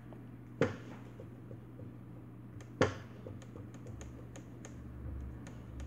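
Two sharp knocks and then scattered light ticks as hands roll and smooth a dough-covered styrofoam ball on a hard work surface, over a low steady hum.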